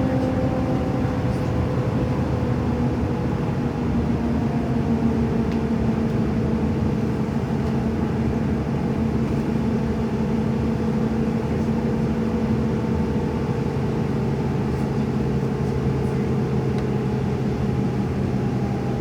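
A motor vehicle running steadily, its engine hum drifting slowly in pitch over a bed of steady road or motor noise.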